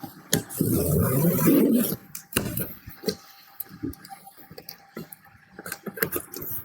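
Cardboard box being opened and unpacked by hand: a loud scraping tear lasting about a second and a half, starting about half a second in, then light knocks, clicks and rustling of cardboard and packing.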